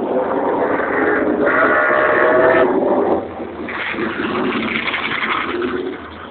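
Racing motorcycle engines revving high as bikes ride past close by, loudest through the first three seconds, then another engine following more quietly until the sound falls away near the end.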